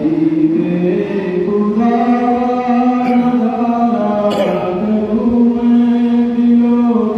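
A man's voice chanting devotional recitation into a microphone, in long held melodic notes with a short break a little past halfway.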